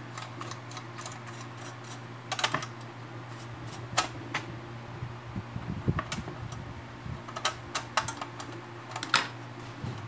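Irregular metallic clicks and taps from the steel levers and linkage of an opened mechanical dial bathroom scale being handled, a few sharper clicks standing out among lighter ticking.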